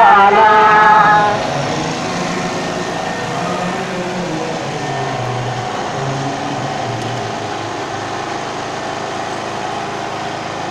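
Singing through loudspeaker horns stops about a second in, leaving the steady hum of a small portable generator engine running.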